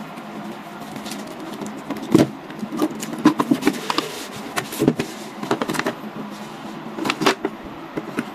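Cardboard headset box being handled and opened: irregular knocks, taps and scraping rustles of the packaging, with a few louder knocks about two seconds in and again near seven seconds.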